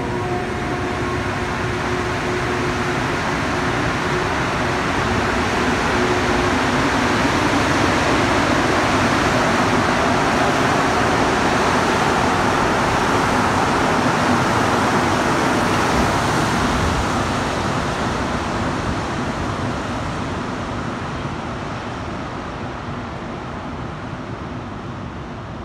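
Rubber-tyred MR-73 metro train pulling out of the station. Its running noise swells to a peak about halfway through as the cars pass, then fades as the train moves off into the tunnel.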